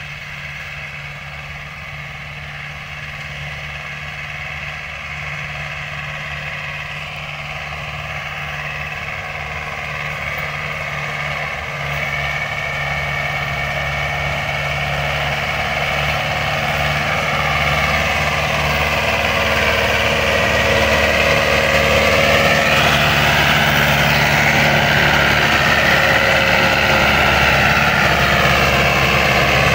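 Farm tractor's diesel engine working as it pulls a tillage implement across the field, steadily getting louder as it comes closer. In the second half its pitch dips and recovers a few times as the load changes.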